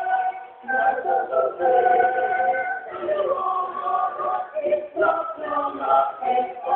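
A church choir of men's and women's voices singing together in moving phrases, with a short break about half a second in.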